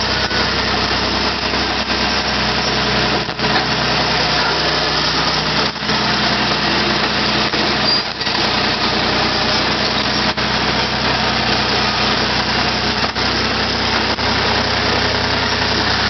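John Deere 350C crawler dozer's engine running steadily while the machine is driven.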